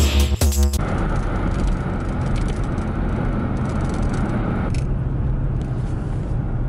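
Electronic intro music cuts off within the first second, followed by the steady road and engine noise of a car driving, heard from inside the cabin. About five seconds in, the hissy upper part of the noise drops away, leaving a lower drone.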